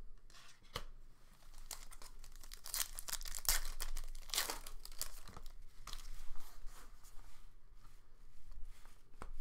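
Foil wrapper of a Panini Select football card pack being torn open and crinkled by hand: an irregular run of tearing and rustling, loudest about three to five seconds in.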